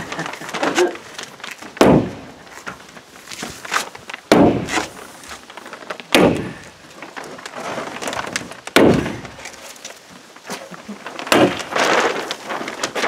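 Hammer stapler being struck against plastic sheeting on wooden concrete-form panels, driving in staples: a sharp thunk about every two seconds, five or six in all.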